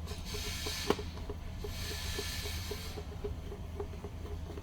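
Light ticking, about four small ticks a second, with one sharper click about a second in and a soft hiss in the middle, as parts of a smart door lock are handled and worked apart.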